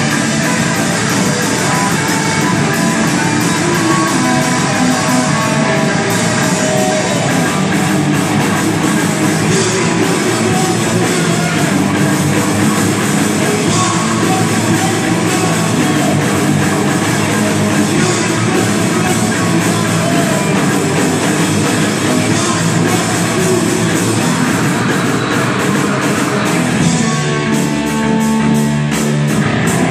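Live rock band playing loud and without a break: electric guitars over a drum kit with cymbals. The riff changes near the end.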